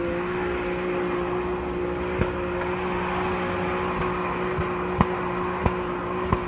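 Off-road 4x4's engine held at steady revs as it climbs loose rock, its note barely changing. A few short, sharp knocks sound over it.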